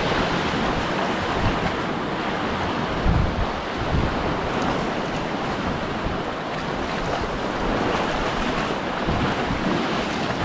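Sea waves washing in steadily, with wind buffeting the microphone in uneven low rumbles.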